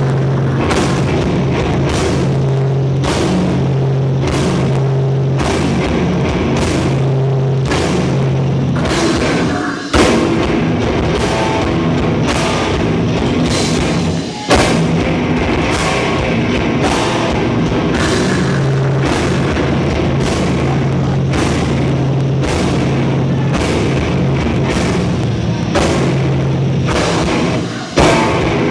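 Heavy rock band playing live: distorted electric guitars and bass over a drum kit with crashing cymbals. The band stops briefly and comes back in on a loud hit about ten seconds in, again about fourteen seconds in, and near the end.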